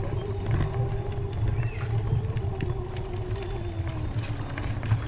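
Bicycle ride over brick pavement: a fluttering low rumble of wind on the microphone and tyres on the bricks, with small rattling clicks. A steady whirring hum runs under it and drops slightly in pitch about four seconds in.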